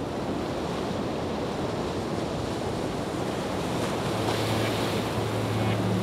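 A steady, even rushing noise, like surf or wind on an ambient nature track. About four seconds in, a low steady drone comes in: the start of background music.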